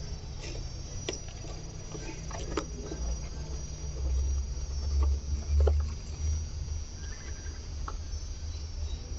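Steady high trill of insects in the background, with a low rumble on the microphone that swells about four to six seconds in, and a few light clicks and taps.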